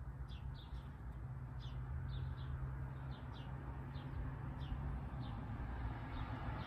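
A small bird chirping: short, high chips that slide downward, repeated about every half second, over a low steady hum.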